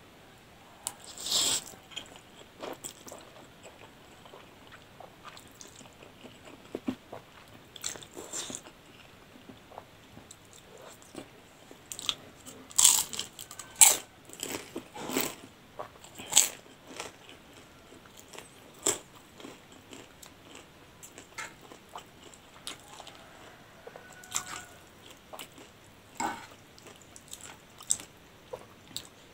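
Close-miked eating: biting, chewing and slurping spicy noodles, with crisp crunches from the fried wontons. The mouth noises are irregular and come thickest and loudest about halfway through.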